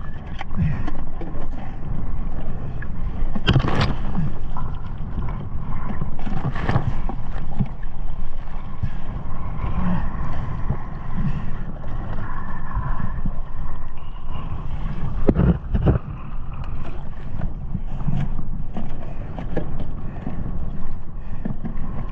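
Choppy sea water sloshing and splashing, with wind buffeting the microphone. A few sharper splashes or knocks stand out about 4, 7 and 15 seconds in.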